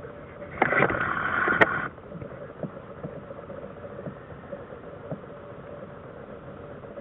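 Airbus A350-900 jet engines running at a distance as a low, steady rumble, with a louder rushing stretch about a second long near the start that begins and ends abruptly.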